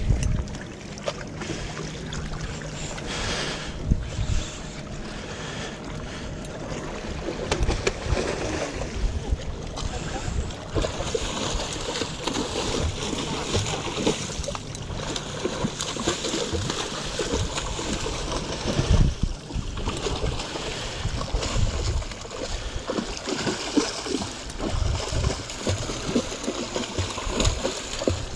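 Wind buffeting the microphone over waves washing against rocks, with a hooked kingfish thrashing and splashing at the surface again and again.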